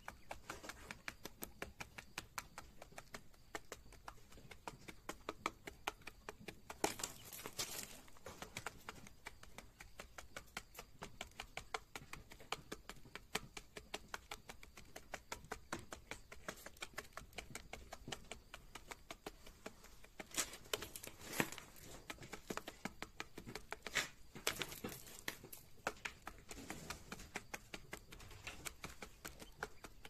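Coturnix quail pecking rapidly at grain weevils and feed in a shallow plastic tray: a steady run of quick, light beak taps, several a second. There are a few louder scratchy stretches about seven seconds in and again past twenty seconds.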